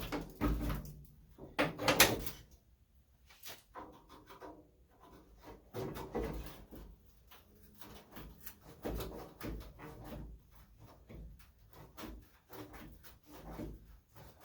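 Irregular knocks and clatter of car parts and hand tools being worked and handled while a part is pried loose from the front of a classic Mini. The loudest knocks come at the very start and about two seconds in, followed by smaller scattered clacks.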